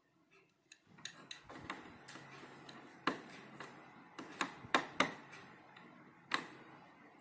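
Irregular sharp clicks of a computer mouse being clicked, about a dozen, the loudest a little past halfway and near the end. Under them is a faint steady room hum that starts about a second in.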